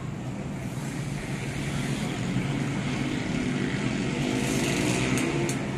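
Distant motorcycles with loud modified exhausts running along the road below, a steady engine drone with a revving note that rises and falls about halfway through. Two short ticks near the end.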